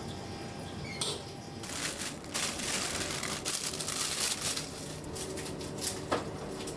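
Kitchen food-preparation noises: a sharp knock about a second in, then a stretch of scraping and rustling, and another knock near the end.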